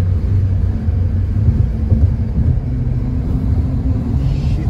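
Steady low rumble of a motor vehicle, with a faint engine hum, and a brief hiss just before the end.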